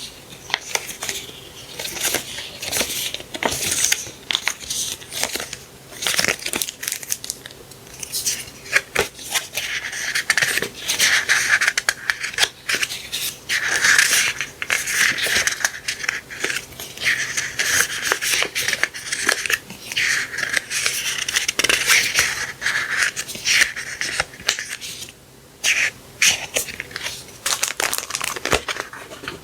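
Paper and packaging being handled up close: continuous rustling, with many small taps and clicks throughout.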